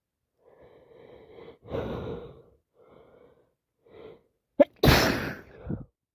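A person with a heavy cold gasping in several times as a sneeze builds, then sneezing loudly once about five seconds in.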